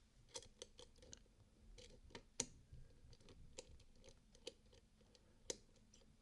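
Faint, irregular metallic clicks and ticks from a lock pick lifting the levers of a Lowe & Fletcher 7-lever locker lock under light tension. The two sharpest clicks come about two and a half and five and a half seconds in.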